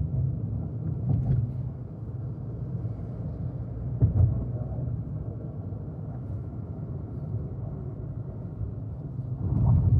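Volkswagen Virtus GT's 1.5 TSI turbo four-cylinder engine and exhaust running as the car drives, a steady low rumble. A short thump comes about four seconds in, and the rumble swells near the end.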